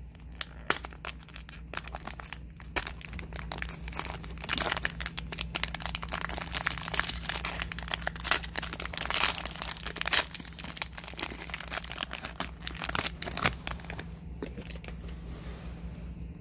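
Foil wrapper of a trading-card fat pack being torn open and crinkled by hand, a long run of irregular crackling.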